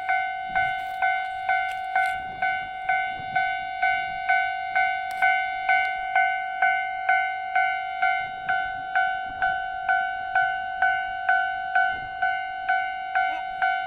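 Japanese railway level-crossing warning bell ringing: an electronic ding repeating steadily about twice a second, the signal that a train is approaching.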